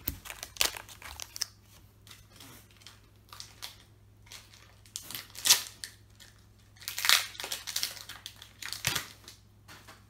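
Foil trading-card booster pack wrapper being crinkled and torn open by hand, in several bursts of crackling rustle.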